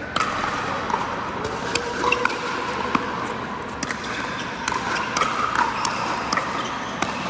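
Indoor pickleball play: irregular sharp pops of paddles hitting the plastic ball and the ball bouncing on the court, about one or two a second, over a steady background din.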